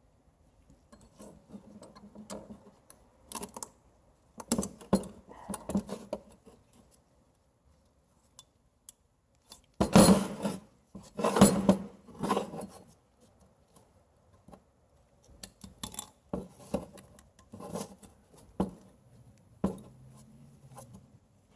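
Metal hand tools and brake parts clinking and scraping against each other in short, irregular knocks, with the loudest clanks about ten to twelve seconds in.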